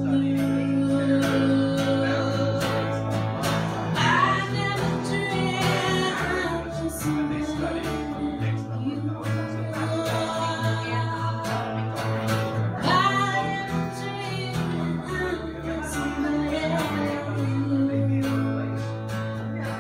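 Live acoustic duo: a woman singing with strummed acoustic guitar over long, held notes on a bowed electric upright bass.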